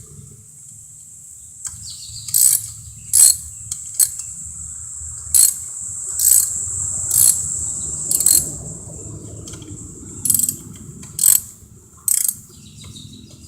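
Hand socket ratchet clicking in short strokes, about ten of them roughly a second apart, as bolts on the engine cover are worked loose.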